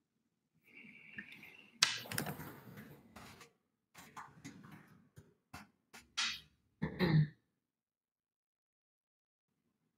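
Scattered rustling and clicking from someone handling things at a desk, with a brief steady high tone just under a second in. About seven seconds in, a person clears their throat, the loudest sound here.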